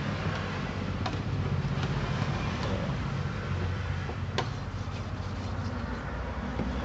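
A steady low mechanical hum under the soft scrubbing of a hand and pad on the rear window glass, as old window-film adhesive is rubbed off the defogger lines with petrol. Two sharp clicks, about a second and about four seconds in.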